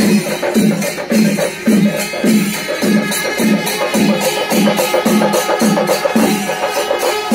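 Music with a steady percussion beat of drum strokes, about two a second.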